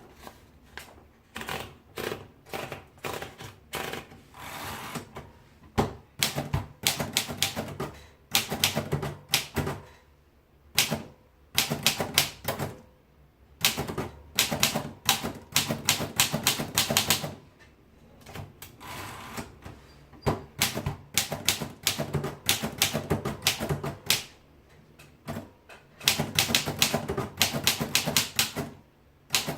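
Royal Portable Model P manual typewriter being typed on: bursts of rapid key strikes, clicking sharply, broken by short pauses.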